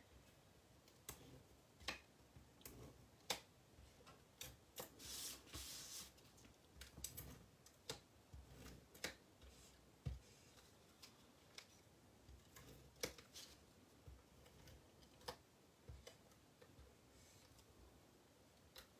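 Faint clicks and short rasps of a Seal+ adhesive tape runner being run over cardstock, with the card being handled and pressed down.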